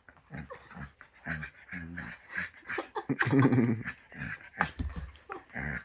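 Shetland sheepdog making a series of short, low grumbles and whines, the longest and loudest about three seconds in.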